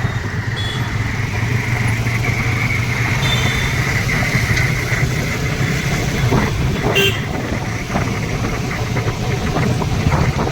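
Motorcycle running steadily while riding in road traffic. A vehicle horn sounds for about two seconds, starting a little over a second in.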